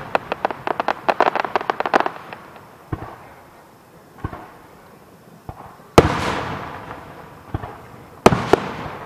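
Fireworks display: a rapid string of crackling pops for the first two seconds, a few scattered pops, then two loud shell bursts about six and eight seconds in, each rumbling and echoing away.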